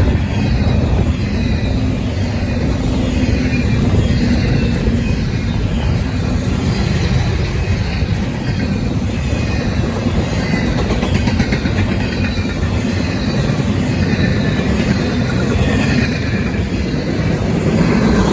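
CSX intermodal freight train's cars rolling past, a loud, steady rumble of steel wheels on the rails.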